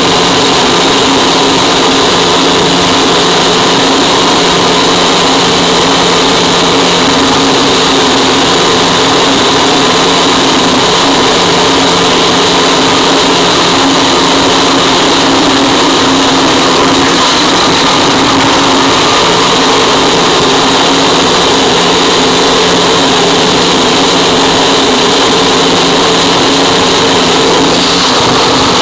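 Harsh noise wall: a loud, dense, unchanging wall of distorted static with no rhythm, melody or breaks.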